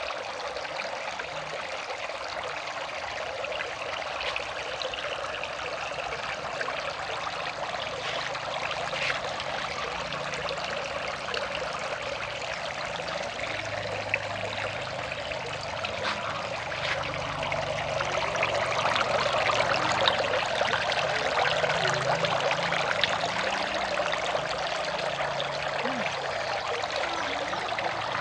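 Water from a small fish-pond waterfall splashing and pouring steadily into the pond, a little louder about two-thirds of the way through.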